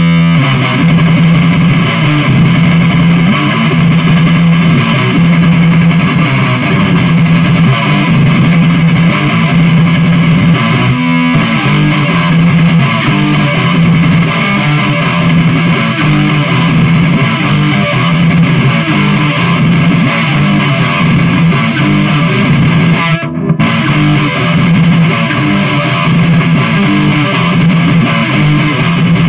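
Loud, distorted electric guitar music with bass, playing continuously, with two very short breaks about eleven and twenty-three seconds in.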